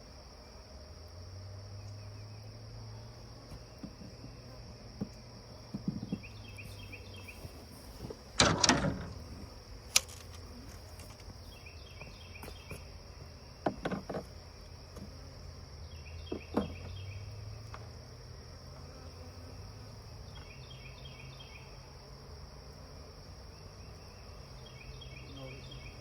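Outdoor insect chorus: a steady high-pitched cricket trill with a short chirp repeating every few seconds, over a low hum. A few knocks and bumps break in; the loudest is a clatter about eight seconds in, with smaller ones near ten, fourteen and sixteen seconds.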